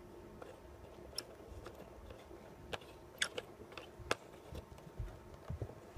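Quiet room tone with a handful of scattered sharp clicks and taps, and a few soft low thumps near the end.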